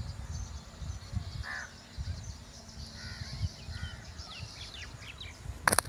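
Crows cawing a few times over a low wind rumble on the microphone, with a sharp knock near the end.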